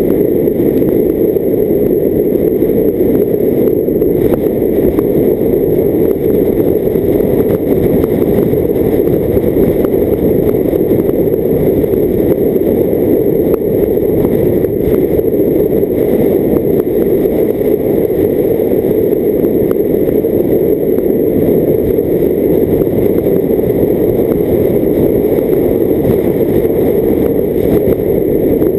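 A car on the move, heard as a steady, muffled rush of wind, road and engine noise picked up by a camera mounted outside on the bonnet.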